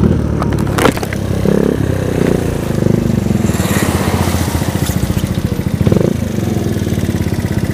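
TNT Motor Roma 50cc four-stroke scooter engine, fitted with a LeoVince aftermarket exhaust, idling with an even pulsing putter after easing off. A sharp knock comes about a second in, and a brief hiss about four seconds in.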